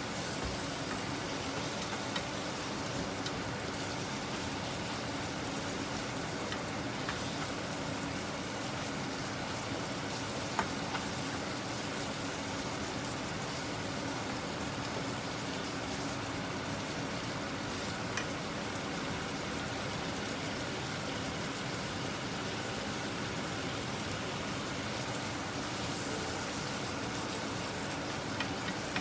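Minced pork frying in oil in a wok, a steady sizzling hiss with a few faint sharp ticks.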